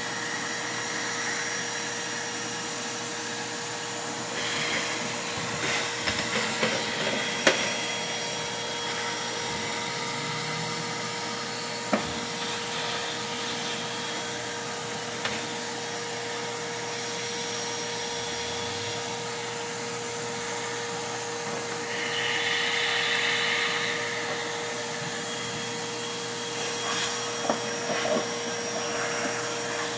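Vacuum cleaner running steadily with a constant motor whine as it sucks dust off computer case fans, with a few sharp knocks along the way.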